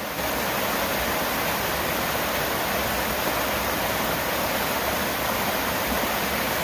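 Mountain stream running over boulders in small cascades: a steady, even rush of water.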